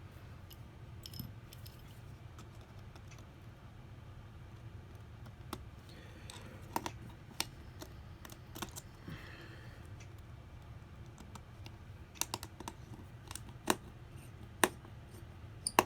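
Scattered light clicks and ticks of small tools and screws against an iPhone SE's frame as its internal screws are driven back in, sharper and more frequent near the end, over a faint low hum.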